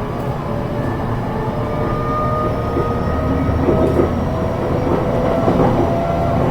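E233 series electric train running between stations, heard from inside the car: a steady rumble of wheels on rail, with faint whining tones that shift in pitch.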